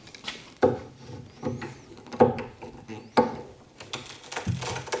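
A hand tool knocking and clicking against the wooden cabinet frame: about five sharp knocks at uneven intervals, the loudest about two and three seconds in.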